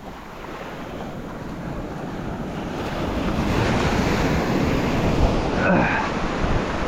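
Surf washing onto a beach, with wind buffeting the microphone; the wash swells louder over the first few seconds, then holds steady.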